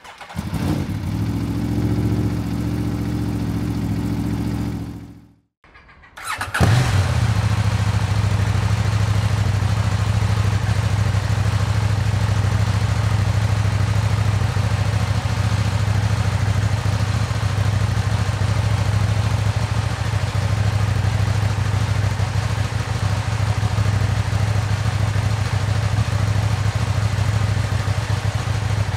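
After a steady hum over the opening, a KTM 790 Duke's 799 cc parallel-twin, breathing through an Akrapovic slip-on silencer, is started about six seconds in. It catches with a sharp rise and then settles into a steady idle.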